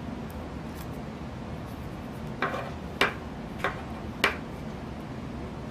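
Four light, sharp clicks about half a second apart, from hand-handling a small tape-wrapped plastic pipe ring and an X-Acto craft knife.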